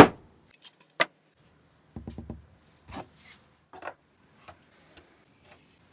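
Sharp knocks and taps of wood: a loud knock at the start, another about a second later, a quick run of four light taps, then a few softer scattered taps.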